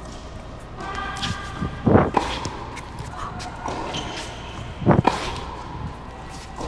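Tennis ball struck hard by a racquet twice, about three seconds apart, each hit a sharp loud pop.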